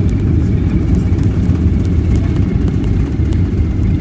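Steady low cabin rumble inside a Boeing 737-800 coming in to land: engine and airflow noise heard from a window seat, with a faint steady high whine on top.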